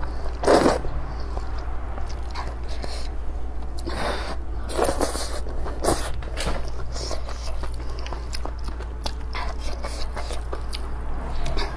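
Close-up eating sounds: a person biting and chewing thick sweet potato vermicelli, with irregular wet clicks and several brief louder mouthfuls over a steady low hum.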